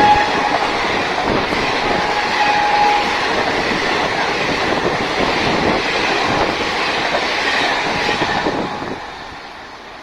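An Indian Railways express train passing close by at speed: loud rushing and rolling noise with the clickety-clack of wheels over rail joints, and a brief horn note about two seconds in. The noise dies away about nine seconds in as the last coach goes by.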